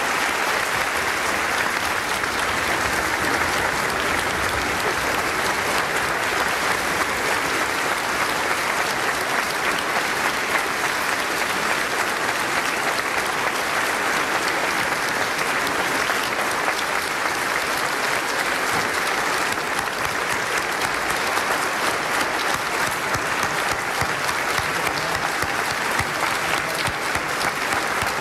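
Large audience applauding steadily, a sustained ovation that neither swells nor dies away.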